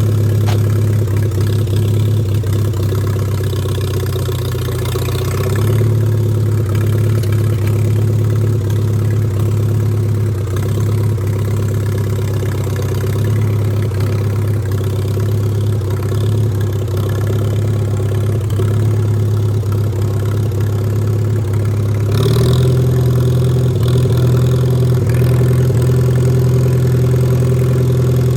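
1947 Farmall A tractor's four-cylinder engine running steadily, picking up speed and getting a little louder about three-quarters of the way through.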